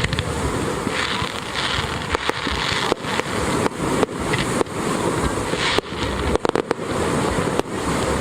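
Fireworks display going off: a dense run of sharp bangs at irregular intervals over a continuous rumbling crackle.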